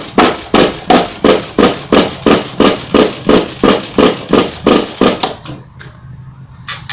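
A hand pump worked in quick, even strokes, about three a second, stopping about five seconds in.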